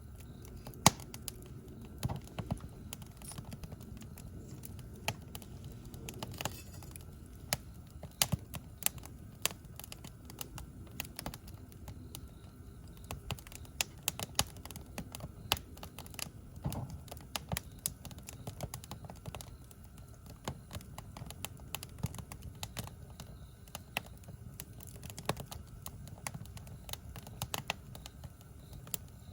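Wood campfire crackling, with irregular sharp pops and snaps of varying loudness over a low steady rumble.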